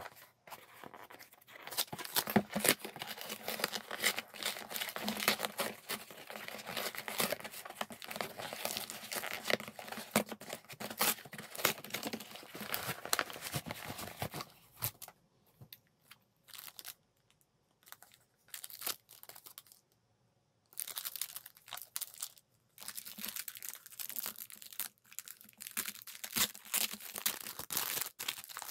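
Corrugated cardboard shipping box being torn open by hand, cardboard ripping and crumpling in long stretches of rustle. About halfway through it drops to a few scattered small rustles and clicks, then the tearing and crinkling start again.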